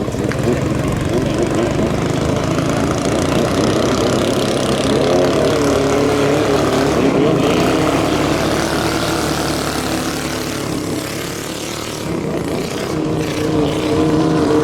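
Racing-boat engines running loud at a 5K-class boat race, their pitch rising and falling as they rev, about five seconds in and again near the end.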